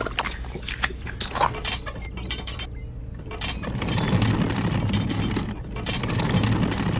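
Handling noise of a miniature concrete mixer and toy wheelbarrow: scattered small clicks and knocks as the mixer drum is tipped to pour concrete. After about three and a half seconds comes a steady gritty crunch, as the toy wheelbarrow is pushed over sandy ground.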